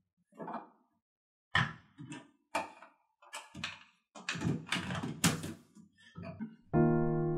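Cosmetic containers being taken out of and set into a wicker basket: a string of light knocks and clatters, with a denser run of rattling and rustling around the middle. Piano music comes in near the end.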